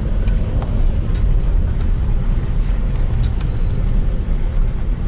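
Car driving: a steady, loud low rumble of engine and road noise, with scattered light rattles and clicks.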